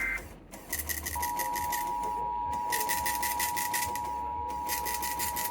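Weather radio alert signals. About a second in, a steady single-pitch alarm tone starts and holds. Over it, a higher, rapidly pulsing digital data signal comes in three bursts with short gaps between them.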